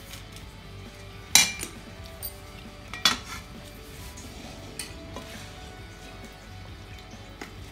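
Stainless steel kitchen utensils clinking: two sharp metallic clinks about a second and a half apart, with a few lighter taps around them.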